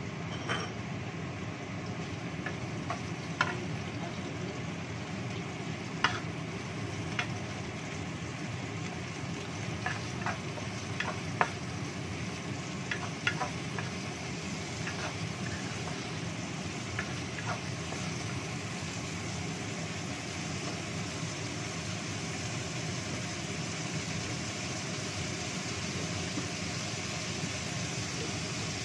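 Small shrimp sizzling in oil in a nonstick wok, stirred with a wooden spatula that knocks and scrapes against the pan. The knocks come mostly in the first half and thin out later, over a steady low hum.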